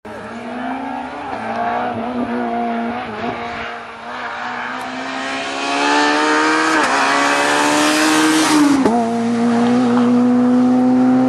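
Vauxhall rally car's engine running hard down a hill, with a few brief dips in revs in the first seconds. Its pitch then climbs slowly and the sound grows loudest as the car comes close. The pitch drops sharply as it passes, about nine seconds in, and the engine then runs steady as the car pulls away.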